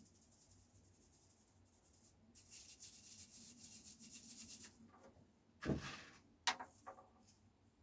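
Loose model-railway ballast being spread over the track: a soft, gritty rustle for about two seconds, then a dull knock and a sharp click followed by a few lighter clicks.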